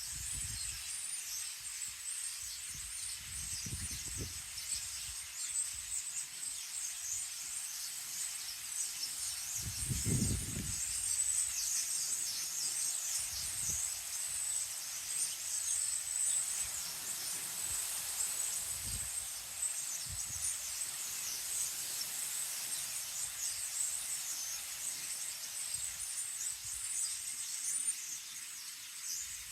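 Many small birds chirping steadily in a dense, high-pitched chorus. Wind gusts rumble on the microphone now and then, the strongest about ten seconds in.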